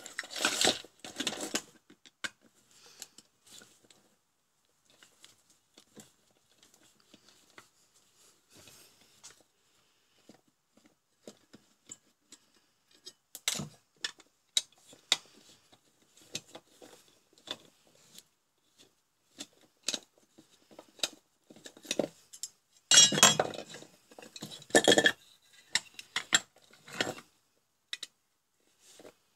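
Metal parts of an LED floodlight being handled on a workbench: scattered clinks and knocks of the aluminium housing, reflector and tools, with a louder burst of clatter a few seconds before the end.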